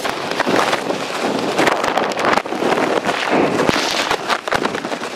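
Strong, gusty storm wind buffeting the microphone, a loud rushing noise that surges and dips.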